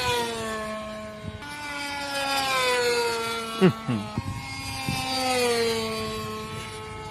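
Two-stroke O.S. .55 glow engine of a Sporter RC model plane at full throttle, a high-pitched buzz whose pitch slowly falls as the plane passes. The sound breaks off and restarts twice, as separate passes follow one another.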